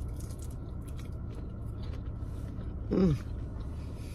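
Close-up chewing and biting of a battered fried prawn: small crisp clicks and wet mouth noises over a low steady hum. About three seconds in, a short hummed 'mm' that falls in pitch.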